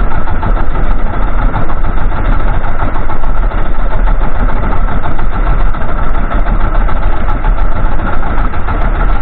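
Small fishing boat's engine idling, loud and steady throughout.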